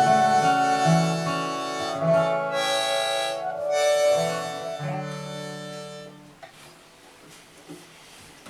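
Harmonica playing the closing bars of a folk song over acoustic guitar, ending on a held final chord that fades out about six seconds in. Faint room noise with a few small clicks follows.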